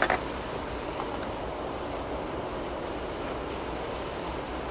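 Wind buffeting the microphone: a steady rushing noise, with a short sharp knock right at the start and a faint tick about a second in.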